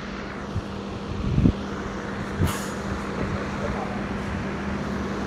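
Steady machinery hum in a workshop hall, with a dull knock about a second and a half in and a sharper metallic knock a second later.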